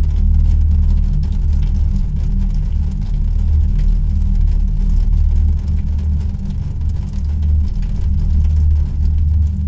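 A loud, steady low rumble with a faint hiss above it.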